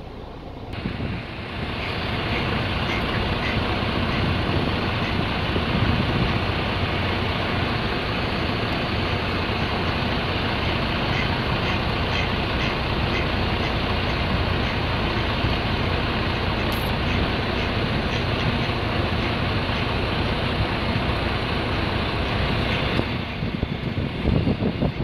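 Steady rumble of a motor vehicle running close by, rising about a second in and dropping away near the end.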